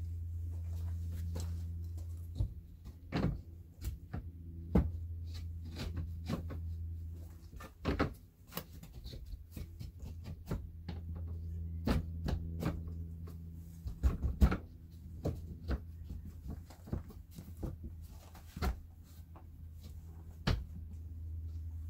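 Scattered knocks, taps and scrapes of a lap siding board being handled against the wall and set onto metal siding gauge hooks, over a steady low hum. The sharpest knocks come in a quick cluster about two-thirds of the way through.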